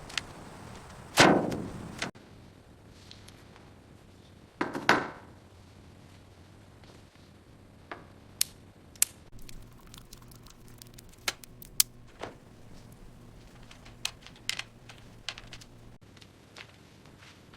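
A loud knock with a short ringing tail about a second in, a second knock near the middle, then scattered sharp clicks and taps.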